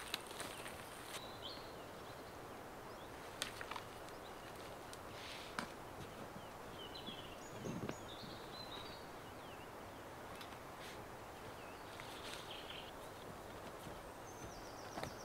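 Outdoor ambience: a steady rushing background noise with a few short, high bird chirps and an occasional light knock or footstep.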